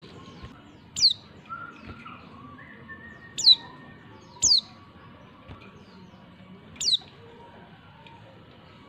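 Female white-eye (pleci) calling: four short, high chirps, each falling steeply in pitch, spaced unevenly over several seconds.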